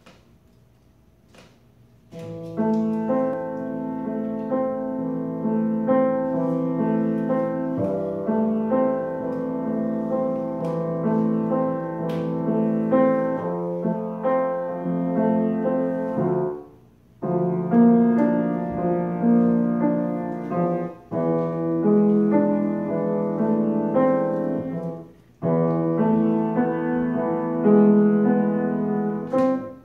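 Grand piano being played, a piece beginning about two seconds in, with a couple of short breaks between phrases.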